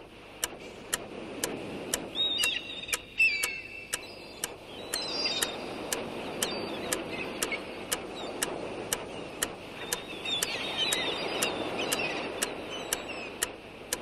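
Steady clock-like ticking, about two ticks a second, over a noisy wash that slowly grows louder, with scattered high chirps.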